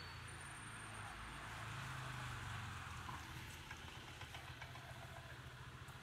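Wet-weather street ambience: a steady hiss of rain and traffic on wet roads over a low hum of engines, swelling around two seconds in as a vehicle passes.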